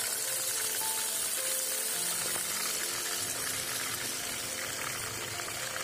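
Raw beef chunks sizzling as they fry in hot ghee in an aluminium pot, a steady hiss. Background music plays under it.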